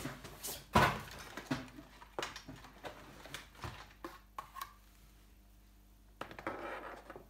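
Handling noise on a tabletop: a sharp thump about a second in, then a scatter of knocks and clicks over the next few seconds, and a cloth rustle near the end as a sleeve brushes across the table.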